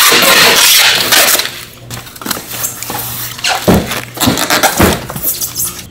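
Packing tape pulled off a handheld tape gun across a styrofoam box, a loud ripping hiss for about the first second and a half. Then the styrofoam box is handled and turned, with a few knocks and thumps.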